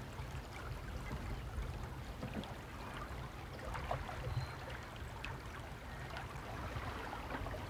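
Shallow water lapping and trickling among stones, over a steady low rumble.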